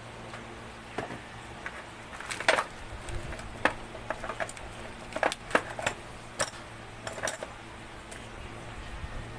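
Hand tools and small metal parts clicking and clinking as they are handled: a dozen or so irregular sharp taps scattered over several seconds.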